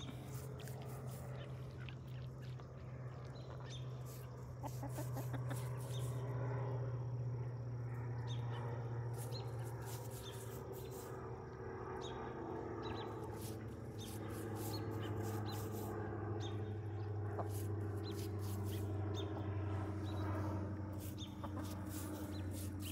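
Domestic ducks and chickens calling, over a steady low hum, with scattered sharp clicks throughout.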